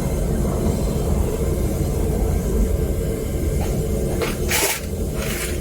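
Home-made propane burner firing into a melting furnace: a steady low rumble, with two brief hissing noises about four to five seconds in.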